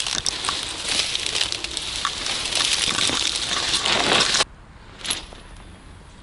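Loud crackling and rustling of dry grass and reeds being trampled and pushed through, which cuts off suddenly about four and a half seconds in. A brief rustle follows a moment later.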